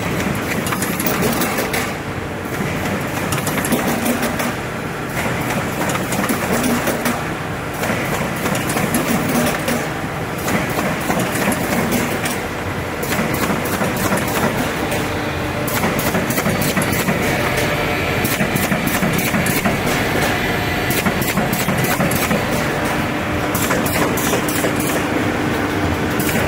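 Automatic carton partition assembly machine running: a steady mechanical clatter with dense, rapid clicking from its air-driven cylinders and feed mechanism, busier in the second half.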